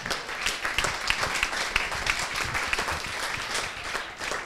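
A room full of people applauding: dense hand clapping that starts suddenly and keeps up steadily.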